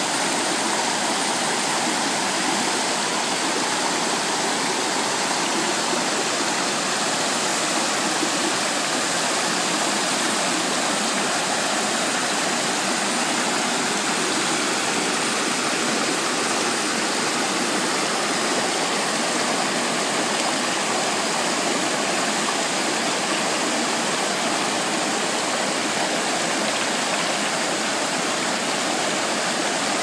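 Rocky stream rushing and splashing over smooth boulders in small cascades: a steady, even rush of water without a deep rumble.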